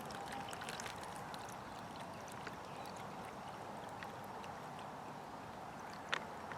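Water poured gently into the Baro Cook stove's plastic fill bag up to the fill line: a faint, steady trickle, with a light click near the end.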